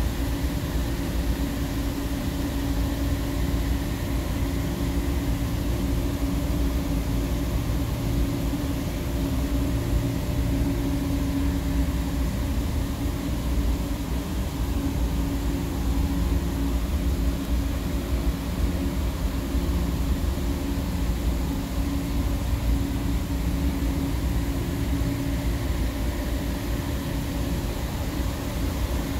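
Steady hum of running mechanical-room equipment: a low rumble under a constant mid-pitched drone, with no starts, stops or changes.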